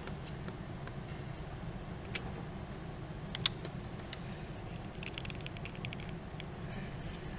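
Hand tools clinking on the engine's valve gear during valve-spring work: two sharp metal clicks, then a quick run of about ten light ticks just after five seconds, over a steady low hum.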